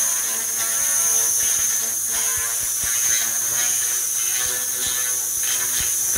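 Handheld laser cleaner ablating residue from a tyre mould: a steady, high-pitched hiss with faint crackles, over a low steady hum.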